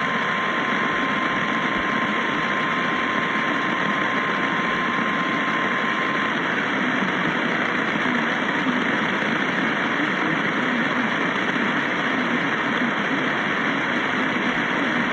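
Steady radio static hiss, with a faint steady tone under it that stops about six seconds in.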